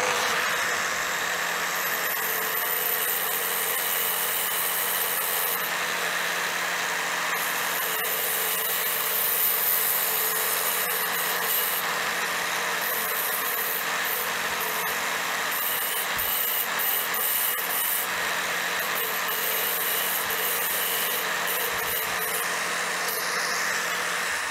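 Angle grinder with a diamond blade, mounted in a cutting stand, running at steady speed and grinding a curve into a clinker brick slip. The motor whine holds constant while the cutting noise changes as the stone is fed into the blade.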